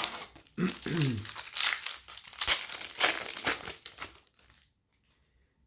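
Hockey card pack wrapper being torn open and crinkled, a dense crackling that stops about four seconds in.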